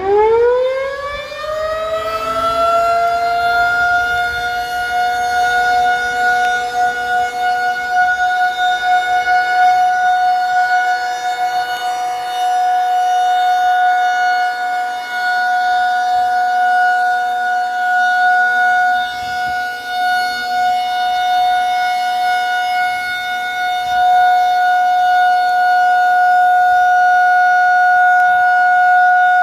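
Federal Signal 2001-SRN outdoor warning siren winding up to pitch over about two seconds, then holding one loud, steady tone whose level wavers up and down. This is the steady alert signal sounded as a siren test.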